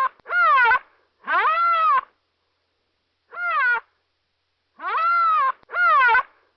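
A looped sound effect of a pitched, animal-like cry, repeated about five times. Each cry rises and then falls in pitch, ending in a downward slide, with dead silence between the cries.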